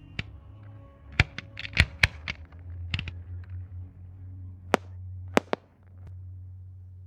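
Fireworks going off: a string of sharp cracks and bangs, bunched in the first three seconds, then a few more around the middle, over a low steady hum.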